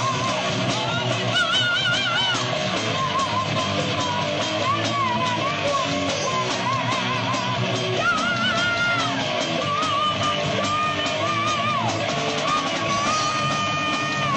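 Live heavy rock band playing: distorted electric guitar, bass and drums, with a wavering lead line full of bends and vibrato that settles into one long held note near the end.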